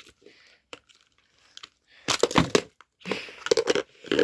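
Crinkly wrapping of L.O.L. Surprise toy packets being handled and crumpled, with a few faint ticks at first, then dense crackling bursts from about two seconds in.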